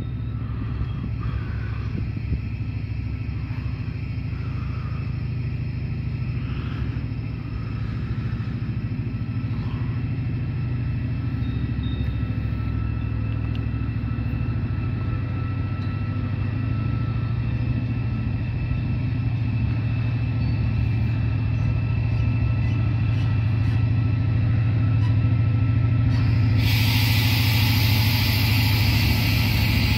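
Locomotive running with a steady low rumble and a faint steady whine, slowly growing louder. About 26 seconds in, a loud hiss starts suddenly and keeps going.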